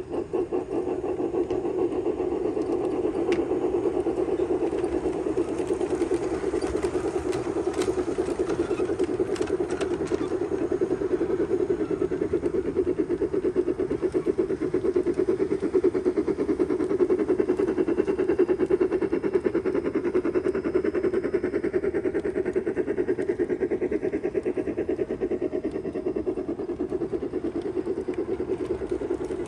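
Bachmann F-scale three-truck Shay model locomotive running, with a fast, steady rhythmic chuffing from its steam sound and the running noise of its geared trucks and wheels on the rails.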